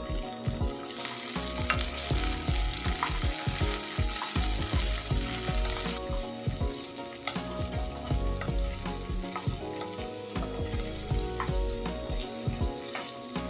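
Cut shallot flower stalks sizzling in a hot ceramic-coated wok while a wooden spatula stirs them, with frequent small knocks and scrapes against the pan. The sizzle is loudest in the first half.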